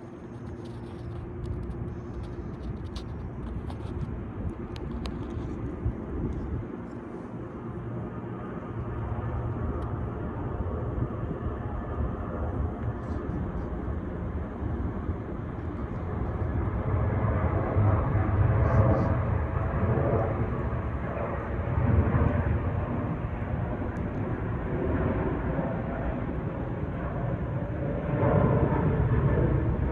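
Jet airliner engine noise, a broad rumble that grows louder about halfway through and stays loud to the end.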